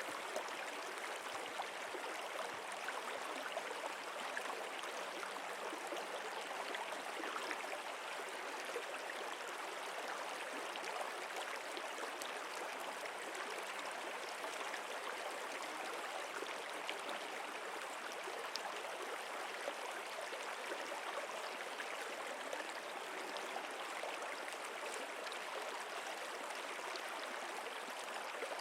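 Flowing stream: a steady, unbroken rush of running water with small gurgles.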